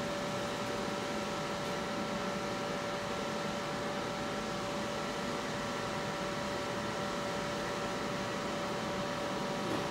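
Class 377 Electrostar electric multiple unit standing at the platform, its onboard auxiliary equipment humming steadily with several constant high tones.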